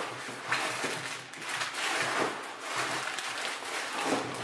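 Clear plastic wrapping crinkling and bag fabric rustling as items are handled and pulled from a travel bag, loudness rising and falling unevenly.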